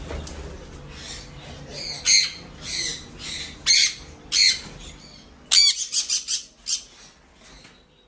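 Conures in breeding cages squawking: a string of short, harsh, shrill calls, ending in a quick run of them about six seconds in.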